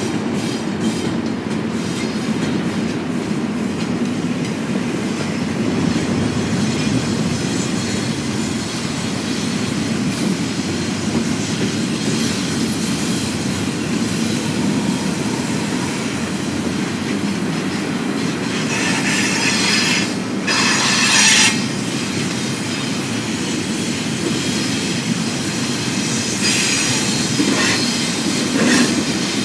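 BNSF double-stack intermodal freight train rolling past, its cars rumbling steadily over the rails. High-pitched wheel squeal rises twice in the last third.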